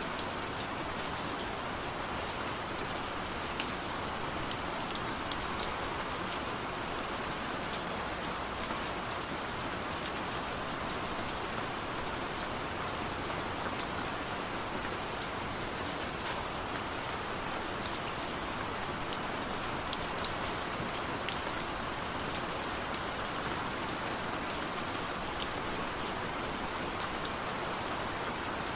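Steady rain falling, an even hiss with many sharp drops pattering on a surface close by. No thunder.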